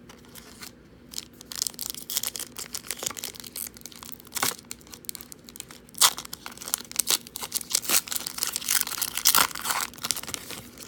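Foil trading-card pack wrapper being torn open and crinkled by hand: a dense, irregular run of sharp crackles and rips, the loudest about six seconds in.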